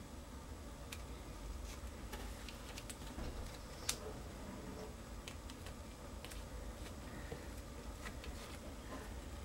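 Faint handling sounds of paper squares being pressed onto sticky packing tape: scattered light clicks and ticks, with one sharper click about four seconds in, over a low steady hum.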